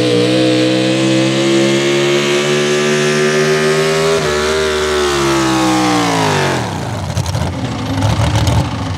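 Pro Stock 4x4 pulling truck's engine running at high revs under full load as it drags the sled. Its pitch then falls over about a second and a half as the truck comes to a stop at the end of its pull. A rougher, crackling engine sound follows.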